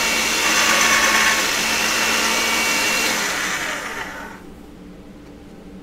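Motorized pasta machine running with a steady whirring whine as a sheet of polymer clay and a texture sheet feed through its rollers. The motor winds down and stops about four seconds in.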